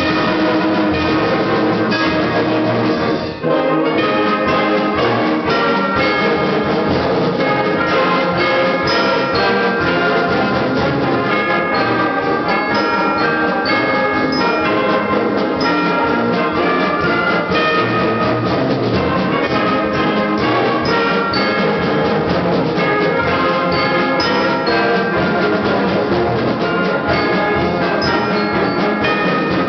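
School concert band of woodwinds, brass and percussion playing a march at full volume, with a brief drop in volume about three and a half seconds in.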